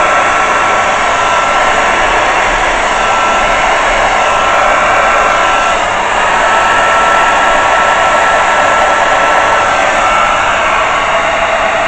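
Handheld hair dryer running steadily, blowing air across wet acrylic paint to push it out in a Dutch pour. A steady motor whine rides over the rush of air and sags briefly about halfway through.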